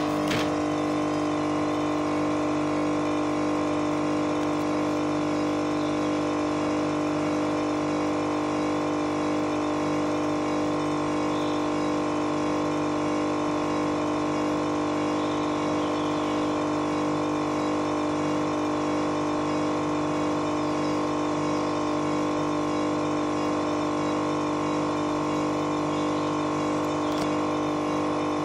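Indesit Evolution W161 washing machine spinning at a steady speed on its delicate spin: an even motor whine made of several steady tones, with a slight regular wobble in the higher ones as the drum turns.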